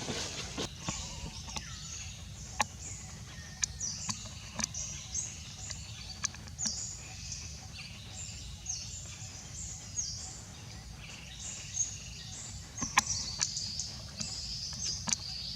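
Songbirds chirping and singing in quick short phrases throughout, over a steady low background rumble, with a few sharp clicks.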